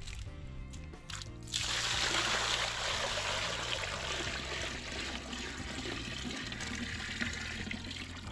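Water poured from a bucket into a concrete septic distribution box, a steady splashing pour that starts suddenly about one and a half seconds in. This is a flow test of the box's speed levelers, checking that water splits evenly to the lateral lines.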